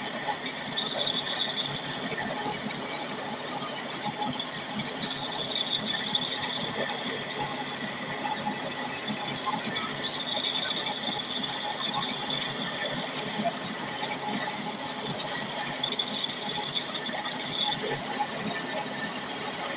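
Drill press running, its twist bit grinding through the friction lining of a semi-truck clutch disc, with a high squeal that rises and fades several times as the bit cuts.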